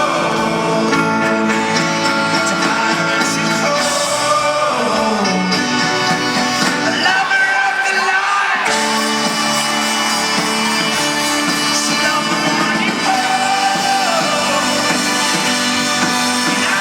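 Folk-rock band playing live, recorded from the audience, with singing and shouts over the full band. About seven seconds in the bass and drums drop out for a second and a half, then the full band comes back in.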